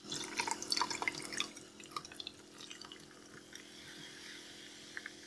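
Sparkling water poured from a glass bottle into a glass mason jar over ice, with a dense crackling fizz that thins out after about two and a half seconds into a faint hiss.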